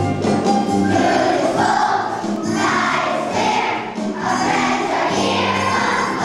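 Group of children singing together over instrumental accompaniment, the voices coming in about a second in.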